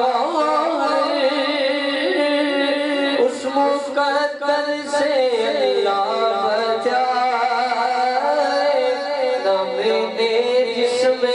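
A man singing a naat, a devotional Urdu poem, solo into a microphone. He holds long notes that waver and slide in pitch, with ornamented turns between them.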